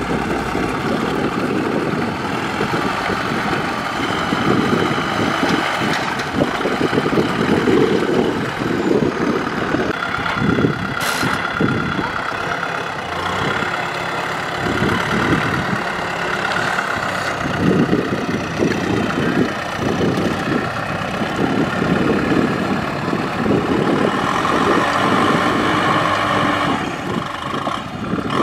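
Kubota M6040SU tractor's four-cylinder diesel engine working hard as the tractor tries to drive out of deep paddy mud, its loudness swelling and easing throughout.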